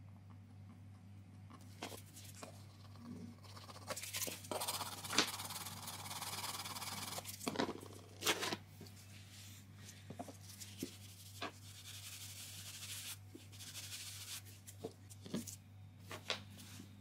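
Handwork on a laminate floor: scattered clicks and taps, and from about four seconds in a few seconds of scratchy rubbing on the floor surface, over a steady low hum.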